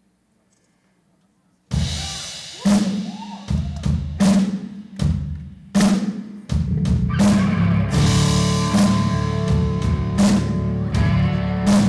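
Near silence, then a country rock band starts abruptly less than two seconds in: heavy drum-kit hits with cymbal crashes roughly once a second. About halfway through it fills out into the full band playing with held notes over the same beat.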